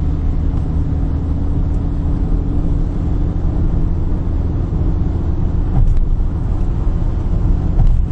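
Steady low rumble of a car's engine and tyres heard from inside the cabin at highway speed, with two brief knocks, one a little past the middle and one near the end.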